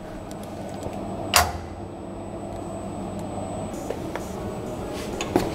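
A few scattered knocks and clicks over a steady low hum, the loudest a single sharp knock about a second and a half in.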